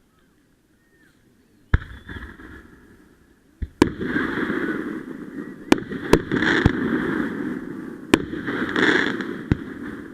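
Fireworks going off: about seven sharp bangs starting a couple of seconds in, with a loud hissing, crackling rush swelling between them.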